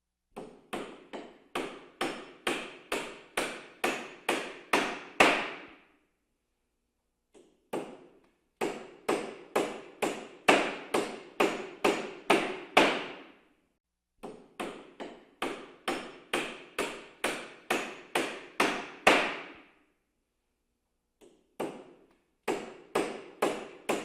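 Hammer pounding in quick runs of a dozen or so blows, about two to three a second, each run growing louder before stopping for a second or two; four runs in all.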